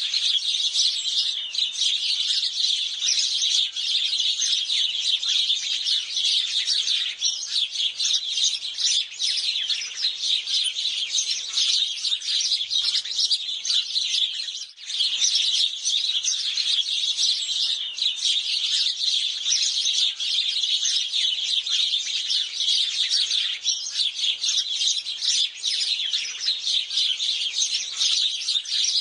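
A flock of house sparrows chirping continuously in dense, overlapping chatter, with a brief lull about halfway through.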